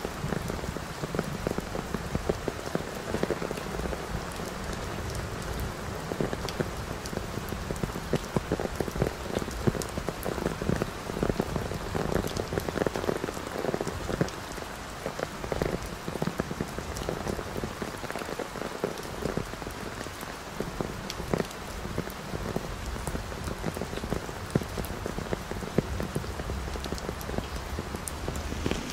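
Heavy rain falling steadily, with many sharp drops striking close by.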